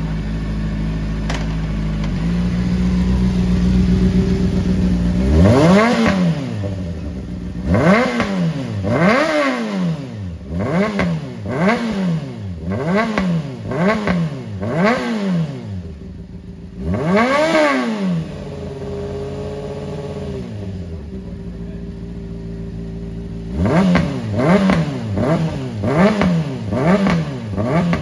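Honda CBR600RR's inline-four engine, fitted with new headers and a flash-tuned ECU, idling and then revved in a string of quick throttle blips that rise and fall in pitch. It settles back to idle for a few seconds, then gets another fast run of blips near the end.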